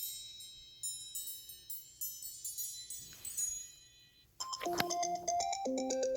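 iPhone tones playing: high, tinkling chime notes that thin out and fade, then about four seconds in a different ringtone starts, a louder, lower repeating melody.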